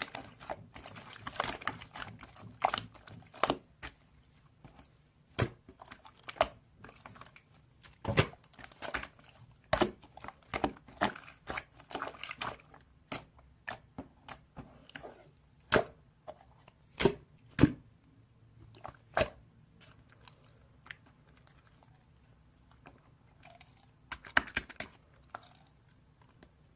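Hands squeezing and stretching slime, making irregular sharp pops and crackles, some in quick clusters, with a quieter pause late on.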